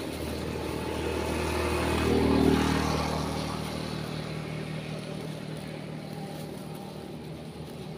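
A motor scooter passing by: its engine hum grows louder to a peak about two and a half seconds in, then fades away.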